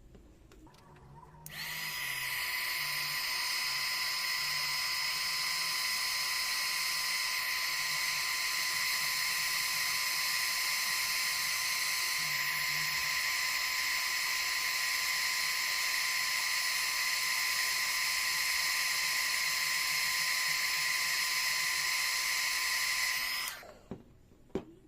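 Hot air gun switched on, its fan motor running with a steady high whine and rush of air for about twenty seconds, then switched off, followed by a couple of small clicks. It is heating a PVC pipe joint to soften it.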